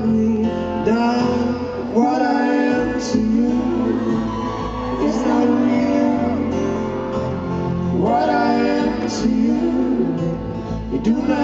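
Live performance of a song: a male lead vocal singing over strummed acoustic guitar and band accompaniment.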